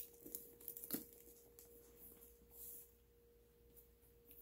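Faint handling of a leather handbag's hang tag and metal clip hardware: two small clicks, one at the start and one about a second in, and a soft rustle near the middle, over a faint steady hum.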